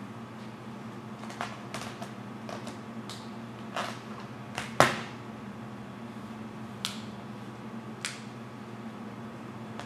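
Vinyl wrap film on a car hood being pressed and lifted with a felt-edged hard card: scattered sharp crackles and snaps, the loudest just under five seconds in, over a steady low hum.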